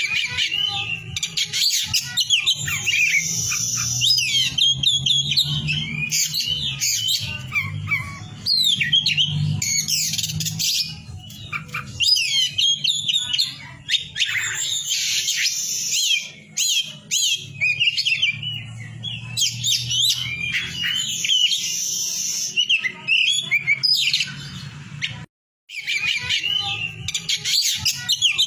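Oriental magpie-robin (kacer poci) singing without pause: a rapid, varied stream of short rising and falling whistles and chirps, a lure song used to set other magpie-robins singing. A low hum runs underneath, and the sound cuts out for an instant about 25 seconds in.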